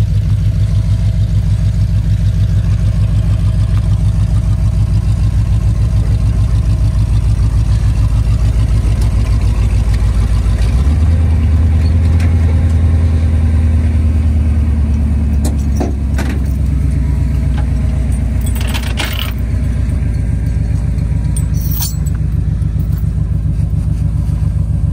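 Truck engine idling steadily with an even pulse. It changes note about eleven seconds in and goes back about ten seconds later. A few sharp metal clanks from tow chains and hooks come near the end.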